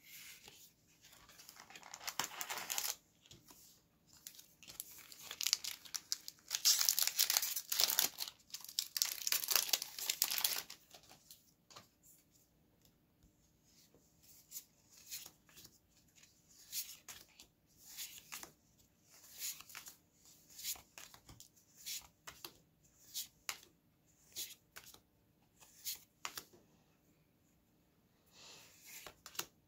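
A trading-card booster pack's wrapper being torn open and crinkled, in two long spells of tearing and rustling in the first eleven seconds. After that come short snaps, about one a second, as the cards are slid one by one off the stack.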